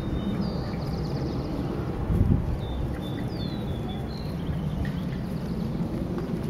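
Wind rumbling on the microphone, with a stronger gust about two seconds in, while small birds chirp in short gliding calls.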